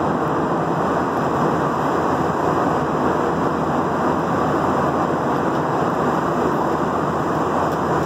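Steady roar of engine and airflow noise inside a jet airliner's cabin during the climb after takeoff, unchanging throughout.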